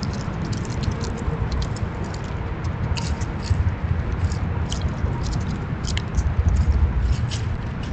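A gray squirrel feeding on seed under a bird feeder: irregular sharp little clicks and crunches, several a second, over a steady low rumble.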